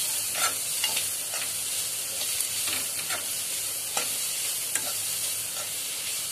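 Chopped onions and spices frying in a pan with a steady sizzle, while a metal spatula stirs and scrapes through them, knocking against the pan every second or so.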